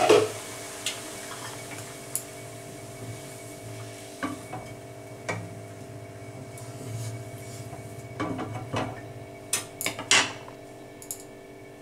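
A spatula knocks and scrapes against a wok and a plate as steamed whole cauliflower heads are lifted out of the water. Scattered clinks come every second or two, with a busier cluster about eight to ten seconds in, over a steady low hum.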